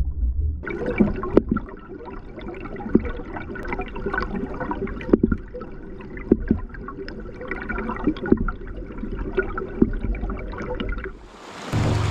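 Stream water heard through an underwater camera: muffled gurgling and rushing, scattered with many sharp clicks and ticks. Near the end it changes abruptly to the open, steady rush of the stream.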